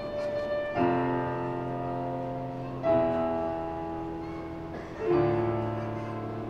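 Piano playing three full chords about two seconds apart, each struck loudly and left ringing as it fades.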